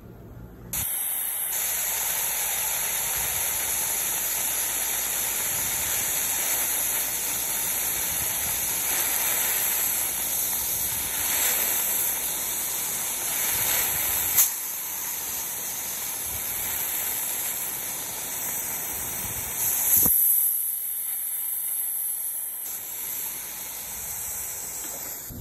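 Dental air-water syringe spray and suction hissing steadily while a tooth is rinsed, with a sharp click about halfway through and a louder surge of hiss near the end before it eases off.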